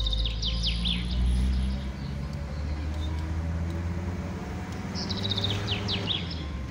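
Car engine and road noise heard from inside the cabin while driving, a steady low hum that shifts in pitch. Two bursts of rapid falling bird chirps come through, one at the start and one about five seconds in.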